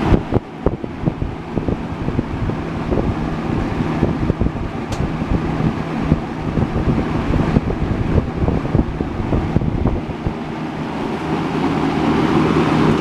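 Dayton (Lakewood 2nd-gen) box fan running, its motor humming under a fluttering rush of air from the blades buffeting the microphone. The hum drops right at the start and builds back up near the end.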